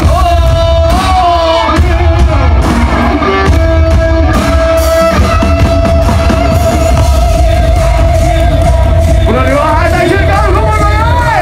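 Loud live concert music heard from within the crowd: singing over a heavy bass beat, with one long held note through the middle of the stretch.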